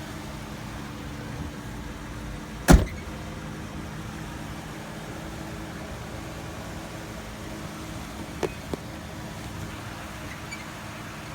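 A 2011 Ford Crown Victoria's door shutting with a single loud thump a few seconds in, over a steady low hum. Two light clicks follow near the end.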